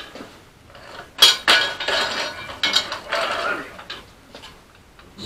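Metal clanking and clinking from a floor jack being worked under a vehicle's front end, with sharp knocks starting about a second in and a stretch of rattling through the middle.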